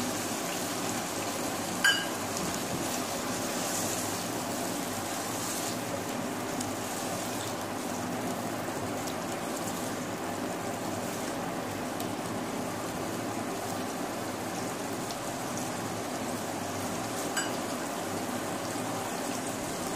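Chicken sizzling and frying in a pan with freshly added yogurt, a steady sizzle as it is stirred. Two light clicks, about two seconds in and near the end.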